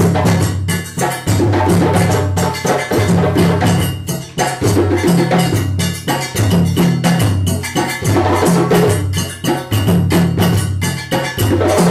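West African drum ensemble: two djembes playing a fast, dense rhythm over the sangban and dununba bass drums, whose low tones come back in a repeating pattern.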